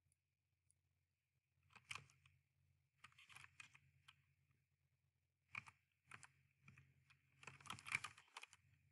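Faint computer keyboard typing in several short runs of key clicks, as words and numbers are typed in.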